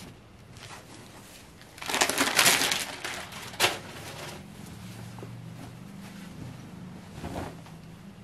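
Silk suit fabric rustling as it is unfolded and lifted off a glass table, loudest for about a second near the start, with a sharp tap just after and a softer rustle near the end.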